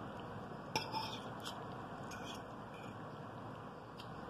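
A few light clicks and scrapes of a metal fork against a dinner plate as egg noodles are scooped up, over steady faint room hiss.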